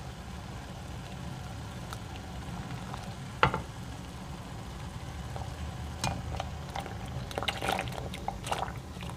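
Pot of water at a rolling boil, bubbling steadily. A sharp knock comes about three and a half seconds in. Later a cluster of small splashes and clicks follows as handmade garganelli pasta is tipped from a plate into the water.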